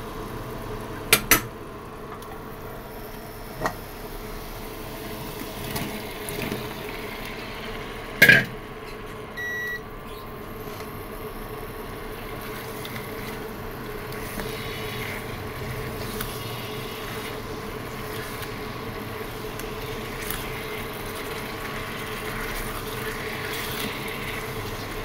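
Spice paste and sliced potatoes and vegetables frying in oil in a pan, a steady sizzle under a faint hum. A spatula knocks against the pan a few times, loudest about eight seconds in, and a short beep sounds shortly after.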